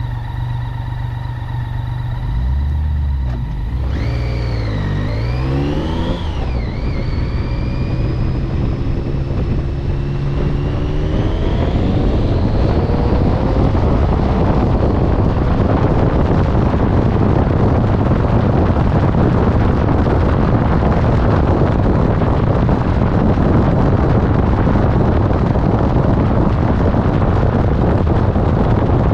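Motorcycle engine idling, then pulling away and accelerating through the gears with rising pitch. From about twelve seconds in, a steady rushing of wind on the microphone at riding speed drowns out the engine.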